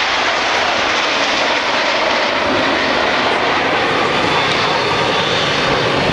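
Jet noise from a formation of BAE Hawk T1 jets with Rolls-Royce Turbomeca Adour turbofans passing at a distance: a steady, even rush.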